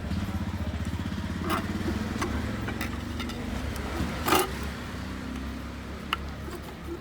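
Steady low motor-like hum, with a few sharp clicks and knocks from handling parts; the loudest knock comes about four seconds in.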